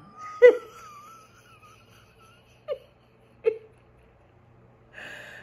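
A woman laughing silently and wheezing at her own punchline: a sharp burst about half a second in, a thin wavering high squeak, a couple of short gasps, and a breathy exhale near the end.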